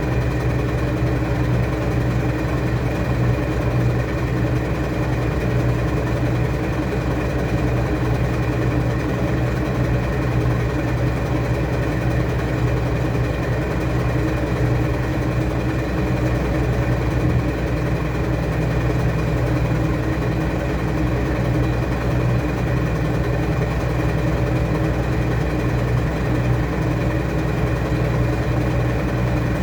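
Washing machine running with a steady motor hum that stays even throughout.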